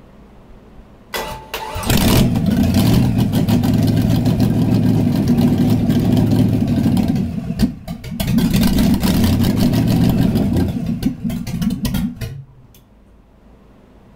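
Chevy 350 small-block V8 on a run stand, cranked by its starter and catching within a second, then running loud with open exhaust. It falters briefly about halfway, picks up again, runs unevenly for a moment and shuts off about twelve seconds in.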